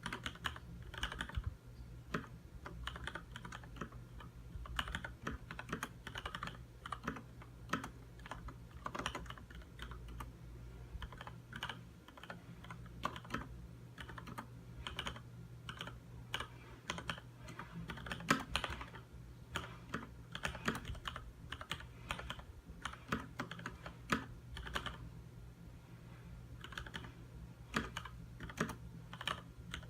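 Continuous typing on a Leopold FC900R mechanical keyboard with Cherry MX Red linear switches: a steady stream of keystrokes, several a second, over a faint low hum.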